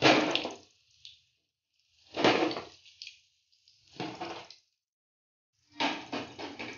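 Wooden spatula scooping fried moong dal pakoras out of hot oil in a steel kadhai and setting them down on a tray, heard as four short bursts of scraping and oily splashing.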